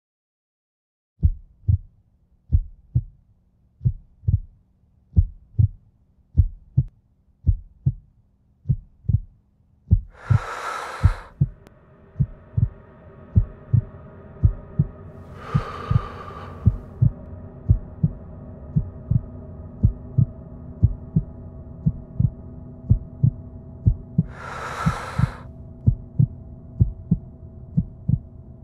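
Heartbeat sound effect: paired low thumps about once a second. About ten seconds in, a sustained drone joins them, along with three swelling whooshes.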